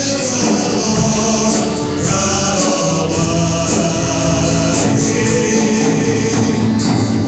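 Live gospel worship music: group singing over instrumental accompaniment, steady and loud.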